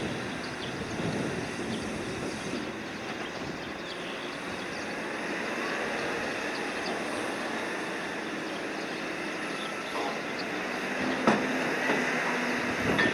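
Ship's cargo crane working: steady mechanical running noise with a faint hum, and a couple of sharp metallic knocks near the end.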